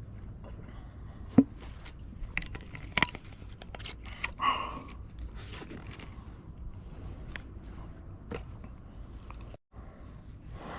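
Scattered small clicks, knocks and scrapes of things being handled close to the microphone, with a brief rustling scrape about four seconds in, over a steady low rumble.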